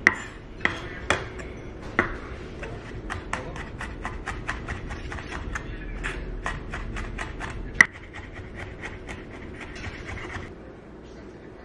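Kitchen knife mincing garlic on a wooden cutting board: a few sharp chops, then a quick run of lighter taps, about three or four a second, with one loud chop partway through. The taps stop near the end.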